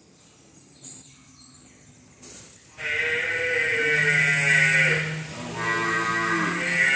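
Water buffalo mooing: after a quiet start, a loud, long, low call begins about three seconds in, and a second one runs on past the end.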